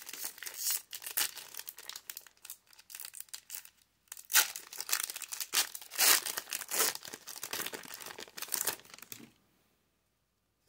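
Foil Pokémon booster-pack wrapper crinkling and tearing as it is torn open by hand, loudest in the middle and stopping near the end.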